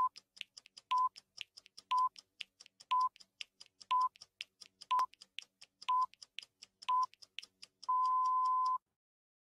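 Film-leader countdown sound effect: a short steady beep once a second, eight times, with irregular clicks and crackle between the beeps. It ends in one long beep of about a second near the end that cuts off suddenly.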